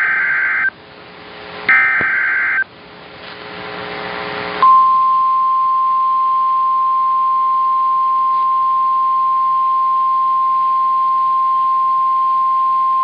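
Emergency Alert System broadcast tones. Two short bursts of warbling digital data tones (SAME header/end-of-message code) come first, and from about four and a half seconds in a single steady alarm tone near 1 kHz holds for about nine seconds. That tone is the NOAA Weather Radio 1050 Hz warning alarm that comes before a new warning.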